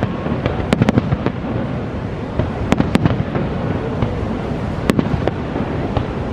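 Aerial fireworks shells bursting as sharp cracks: a quick cluster of about four a second in, a pair near three seconds, then two more around five seconds. Under them runs a steady low rush of noise, the roar of the waterfall below.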